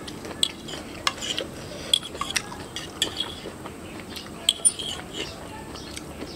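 Metal fork clinking and scraping against a ceramic bowl while stirring and scooping moist stir-fried vegetables, in irregular sharp clicks, with a few louder clinks about two seconds and four and a half seconds in.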